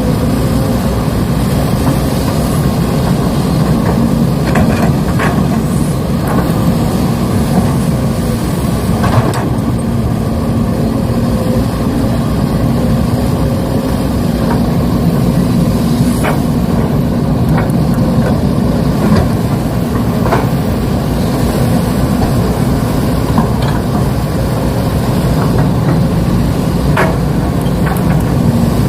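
Steady heavy engine rumble from radio-controlled construction models working, with scattered short clicks and knocks.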